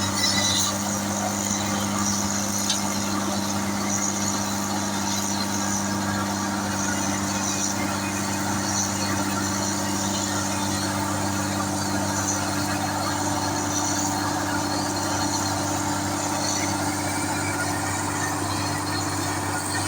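Engine of road construction machinery running steadily at constant speed, a low even hum that does not change.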